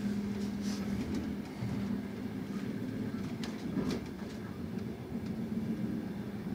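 Running noise heard inside an Intercity passenger coach rolling along the track: a steady low hum with a few sharp clicks and knocks from the wheels over the rails.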